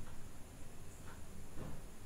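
Faint scraping and stirring of a flat metal spatula through thick masala paste and fried potatoes in an aluminium kadai, with a couple of soft scrapes about a second in and near the end, over a steady low hum.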